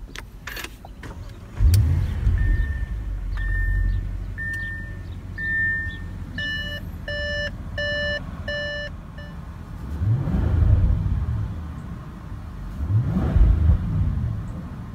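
2017 Audi S8 Plus 4.0-litre TFSI V8 starting with a loud flare about a second and a half in, then settling to idle while the car's warning chime beeps repeatedly. Near the end the engine is revved twice, the revs rising and falling each time.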